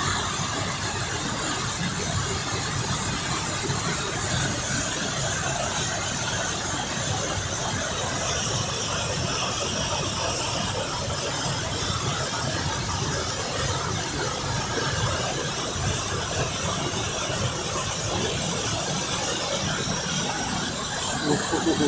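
Waterfall on a river in spate, a heavy flow of fast water pouring with a steady, even rushing noise.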